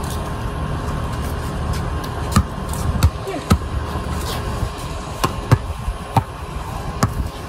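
Basketball bouncing on a concrete court: a handful of irregular sharp thumps starting about two seconds in, over steady low background noise.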